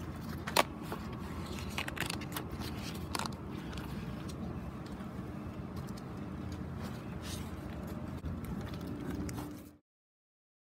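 Steady low outdoor background rumble with scattered clicks and knocks, the loudest a sharp click about half a second in. It cuts off abruptly to silence near the end.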